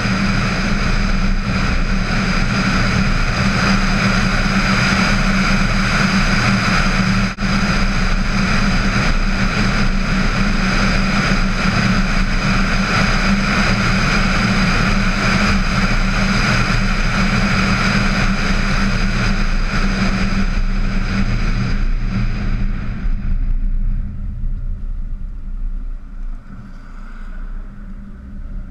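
A VW Tiguan driving, picked up by a camera suction-mounted on its hood: a steady rush of wind and road noise over a low hum. The rush thins and grows quieter in the last few seconds.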